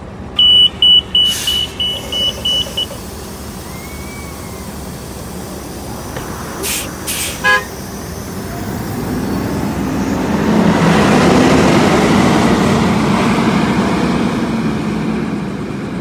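Gillig Advantage low-floor transit bus: a quick run of high beeps from the door warning as the front doors close, two short hisses about seven seconds in, then the engine rising as the bus pulls away, loudest a few seconds before the end.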